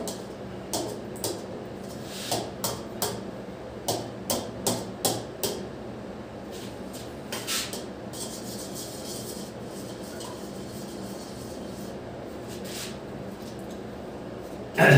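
Metal spoon clinking and scraping against a metal pan while a polvoron mixture is stirred: a quick string of about a dozen clinks in the first five seconds, a few scattered ones after, and a louder knock near the end.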